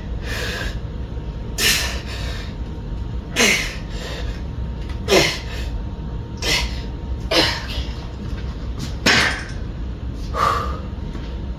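A man breathing out hard through the mouth once per rep of a heavy barbell bent-over row, seven sharp breaths about every one and a half seconds, each dropping in pitch. The last, near the end, is a strained grunt.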